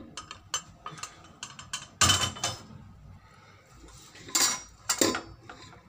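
Kitchen utensils and dishes clattering on a counter: light clinks and knocks, with a louder clatter about two seconds in and two more near the end.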